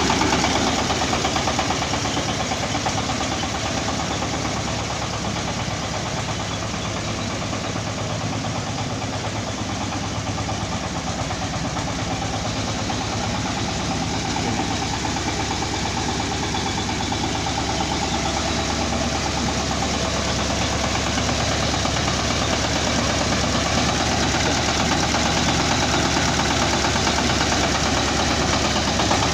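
Corn harvesting machine's engine running steadily with a fast, even pulse, somewhat quieter through the middle and louder again near the end.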